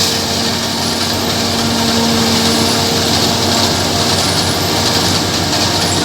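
Claas Jaguar self-propelled forage harvester running steadily while chopping silage: a constant loud machine noise with a steady hum at one pitch.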